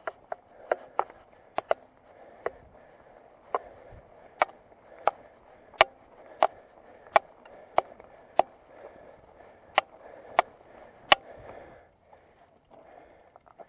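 Mountain bike ridden up a gravel track, heard from a handlebar-mounted camera: tyres running over gravel, with sharp clicking knocks from the bike about every two-thirds of a second. The clicking stops about twelve seconds in as the bike halts.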